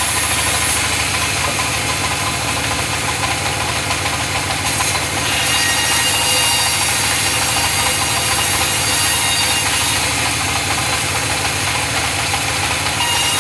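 Engine of a wood-sawing machine running steadily with an even knocking rhythm.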